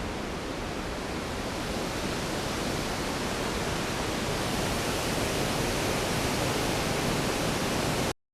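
Storm sound effect: a steady, even rushing noise with no thunder claps. It slowly grows louder and then cuts off suddenly near the end.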